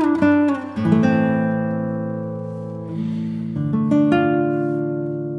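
Background music on acoustic guitar: chords struck about a second in and again near four seconds, each left to ring out and fade.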